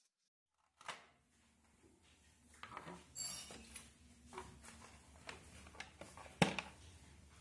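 Hands handling a clear plastic blister tray and SSD packaging: scattered light clicks and crinkles starting about a second in, with one sharp plastic click about six seconds in as the heatsinked drive is pressed into the tray.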